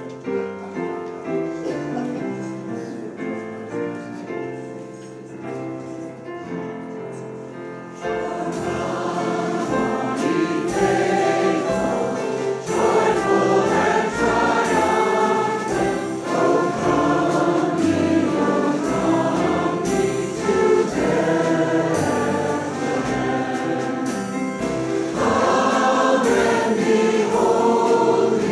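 Mixed choir singing a traditional Christmas carol with instrumental accompaniment. About eight seconds in the music grows louder and fuller, and a low bass beat joins.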